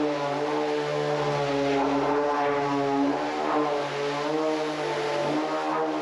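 Background music: sustained chords over a held low note, shifting pitch every second or two.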